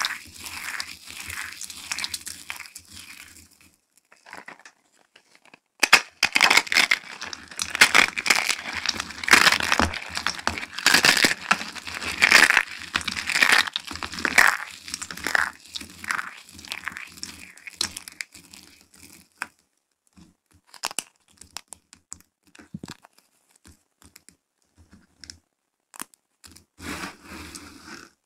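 Thin dry soap plates and shards crunching and crinkling as hands scoop and squeeze them. The crackling is dense and loudest through the middle, after a pause of about two seconds near the start, and thins to scattered small clicks before picking up again near the end.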